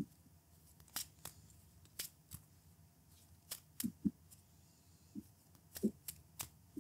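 Sleeved Magic: The Gathering cards being shuffled and handled: faint, irregular sharp clicks and snaps, about one or two a second.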